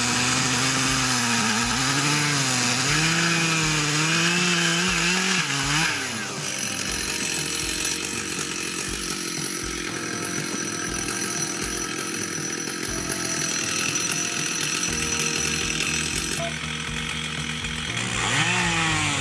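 Chainsaw cutting through a large log, its engine pitch dipping and rising as the chain loads in the wood. About six seconds in the sound changes abruptly to a lower, rougher running, and the dipping-and-rising engine note returns near the end.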